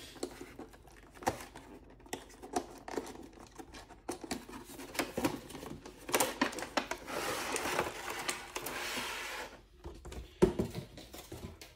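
Cardboard product box being handled and opened: taps and clicks of the flap, then a few seconds of scraping as the plastic insert tray slides out of the box, and a knock about ten seconds in as it is set down.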